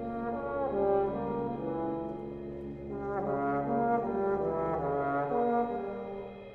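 A live brass ensemble of French horns, trombones and tuba plays sustained chords with moving melodic lines. A low bass note is held under them until about five seconds in, and the music thins and grows quieter near the end.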